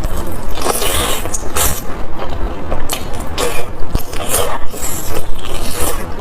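Close-miked eating sounds: irregular wet slurps and chews, several a second.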